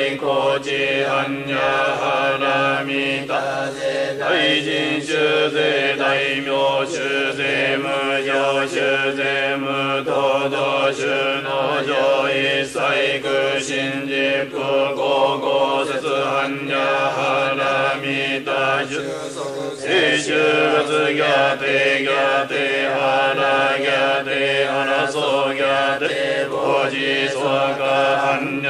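Japanese Shingon Buddhist chanting of sutras and mantras: a voice reciting in a steady, near-monotone pitch, syllable after syllable, with a short pause for breath about two-thirds of the way through.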